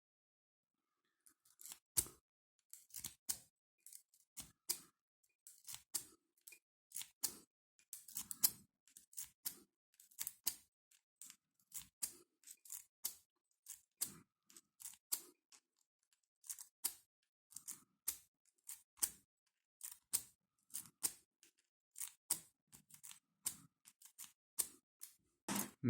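Rake pick being zipped out of a Brinks 40mm pin-tumbler padlock again and again, each pull a quick metallic clicking rattle across the pins, about one or two a second; the lock does not open.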